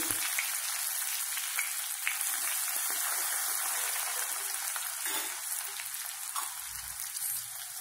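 Crushed ginger and garlic sizzling steadily in hot oil with mustard seeds and cumin, a tempering frying on low heat, with a few faint pops.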